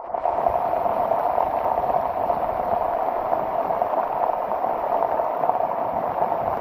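Floodwater rushing fast, a loud steady noise that cuts in suddenly.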